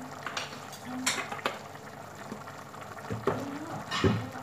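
Tomato-and-water curry base simmering in a pot, a steady bubbling hiss, with a few sharp knocks and thumps of kitchen things about a second in and again near the end.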